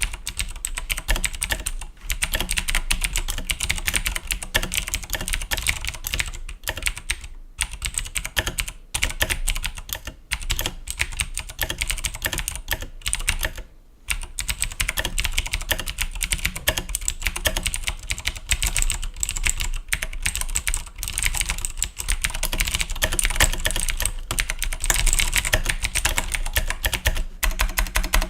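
Fast, continuous typing on a Razer BlackWidow Ultimate mechanical keyboard with Cherry MX Blue clicky switches: a dense run of sharp key clicks, pausing briefly a few times.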